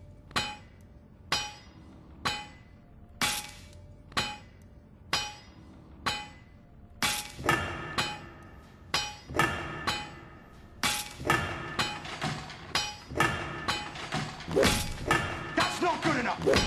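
Instrumental intro of an electronic remix: a sharp, ringing, glassy percussive hit about once a second. From about seven seconds in, fuller pitched layers join and the hits come faster.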